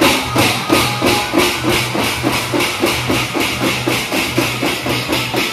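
Hyderabad pad band of large steel-shelled drums beaten with sticks in a fast, steady rhythm of about three strokes a second, each stroke sharp and bright.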